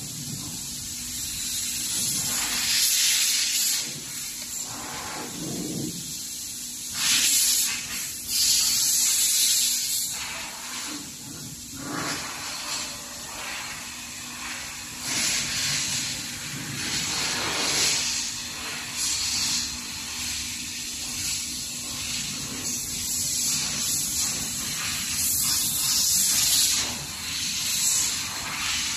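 A hissing noise that swells and fades in surges every few seconds, over a faint steady low hum.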